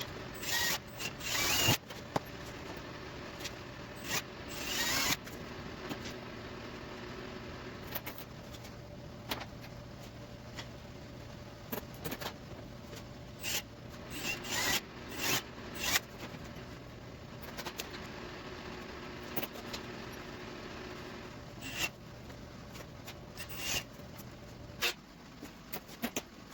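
Plastic zip ties being pulled tight through their locking heads: short ratcheting zips at irregular intervals, with sharp clicks and the rustle of plastic being handled. A steady low hum runs beneath and cuts off near the end.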